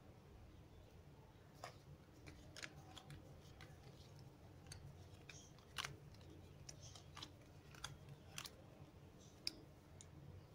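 Playing cards being dealt one at a time onto four piles on a cloth-covered table: faint, irregular flicks and snaps, about ten of them, over a faint steady low hum.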